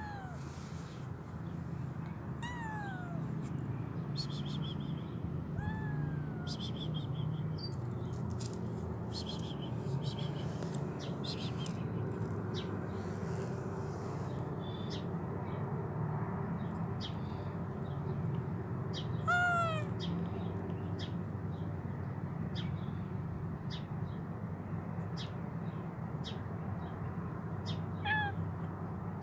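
Tabby kitten meowing about five times, each meow short and falling in pitch, spread out with long gaps, the loudest about two-thirds of the way through. A steady low hum and faint short clicks run underneath.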